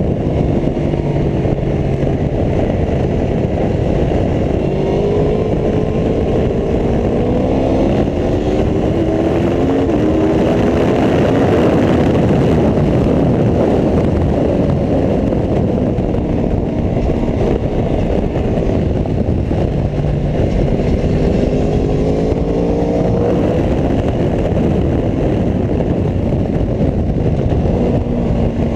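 Aprilia Tuono V4 1100 RR's V4 engine being ridden hard, its pitch climbing under acceleration and falling back several times as it shifts and slows, over a constant rush of wind noise.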